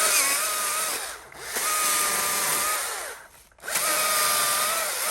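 A saw cutting into a tree in three long runs that start and stop, a steady high tone running through each.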